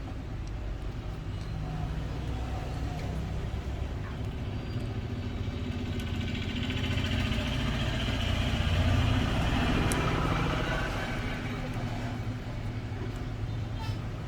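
Road traffic: a steady low engine rumble, with a vehicle passing that swells to its loudest a little past the middle and then fades.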